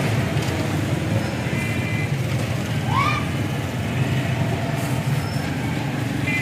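Steady low rumble of street traffic and engines, with a brief rising whistle-like tone about three seconds in.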